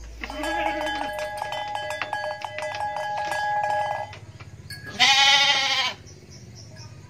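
A sheep bleats once, loud and wavering, for about a second, about five seconds in. Before it, light background music with plucked, bell-like notes plays and stops.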